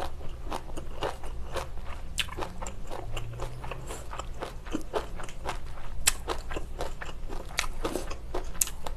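Person chewing a mouthful of spicy pork rib stew and rice noodles close to the microphone: wet chewing with many short, sharp crunches, a few every second.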